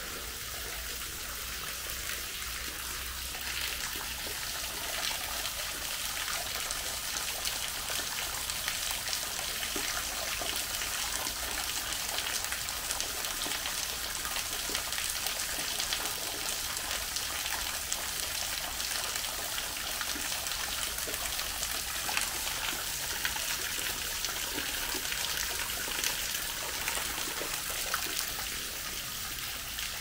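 Water falling down a small waterfall: a steady hiss of water with many small splashes.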